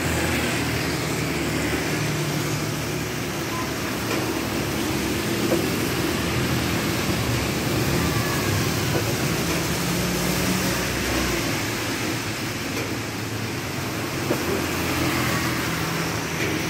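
Steady, even background noise indoors: rain falling on the building, with wall-mounted fans running.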